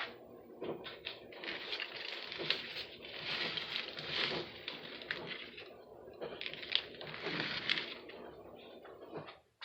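Rustling and crinkling handling noise with scattered small clicks and crackles, in uneven waves. It cuts off suddenly near the end.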